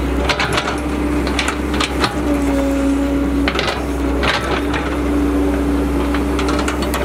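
A Cat E120B tracked excavator runs with a steady low engine rumble and a humming tone that comes and goes as the arm works. Its bucket digs in wet mud, with repeated sharp knocks and scrapes.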